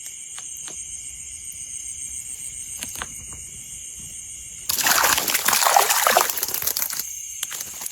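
Water splashing loudly for about two seconds, starting a little past halfway, after a quieter stretch with a steady high-pitched whine and a few light clicks.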